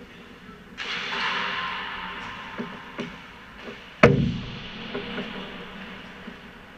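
Hockey skate blades scraping the ice about a second in, a hiss that fades over a couple of seconds. Light clicks of sticks tapping pucks follow, then about four seconds in a loud sharp crack of a puck impact, echoing through the rink.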